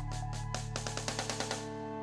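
Background electronic music: a drum build-up with quickening hits over held notes.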